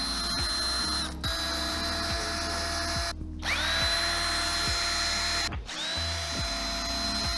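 Cordless drill-driver with a long extension bit spinning out bolts on a balloon burner's base. It runs in three stretches, stopping briefly about three seconds in and again a little before the end, and the motor whine winds up each time it starts.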